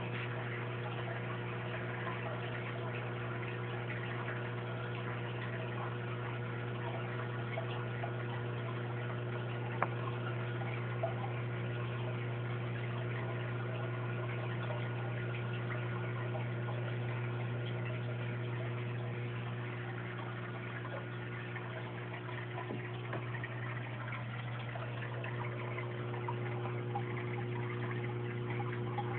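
Aquarium pump or filter motor humming steadily over an even hiss of moving water, with two faint clicks about ten seconds in.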